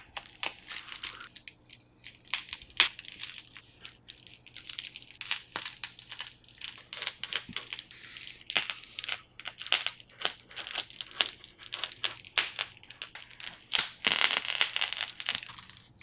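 Craft knife cutting through two layers of a plastic bubble mailer: an irregular run of crackles and crinkles as the blade drags through the plastic and bubbles. A louder, denser stretch of crinkling comes near the end as the cut pieces are handled.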